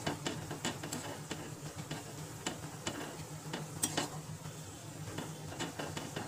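A metal spoon stirring soup in an aluminium kadai, with irregular clinks and scrapes of the spoon against the pan as the broth heats on a gas flame turned to high. A steady low hum runs underneath.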